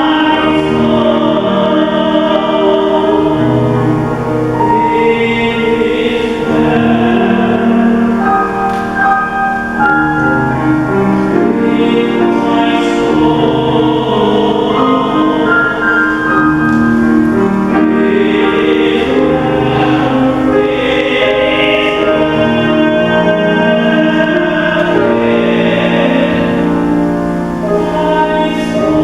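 A group of voices singing a hymn together in long, held chords that shift every second or two.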